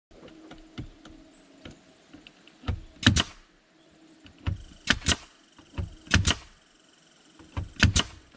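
Nails being hammered into a wooden board: four rounds of sharp strikes, mostly in quick pairs, each round led by lighter taps, starting about three seconds in.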